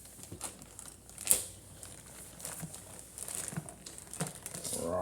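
Crinkling and light clicking handling noises, with one sharp click about a second in.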